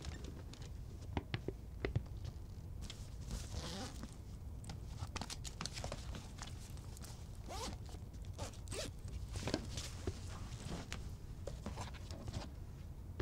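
A backpack being handled and zipped: several short zipper pulls among rustling of the bag's fabric.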